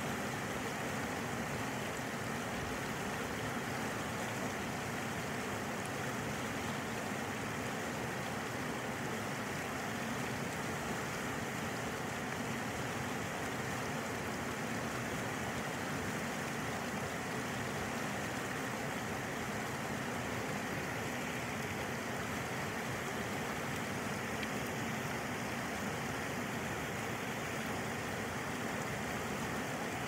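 Shallow river water rushing and splashing over and around rocks, a steady, unbroken rush.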